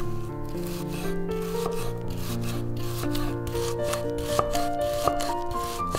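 Background music with a melody, over repeated rubbing or scraping strokes from hands-on food preparation, about two to three a second.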